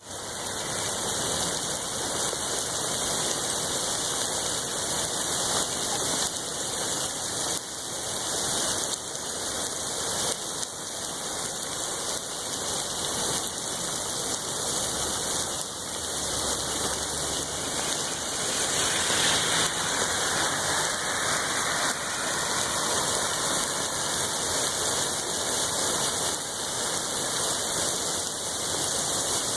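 Rain falling steadily in a thunderstorm.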